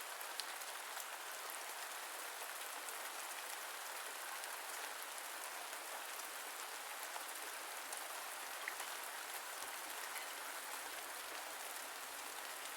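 Steady rain, an even hiss of falling rain with fine drop patter.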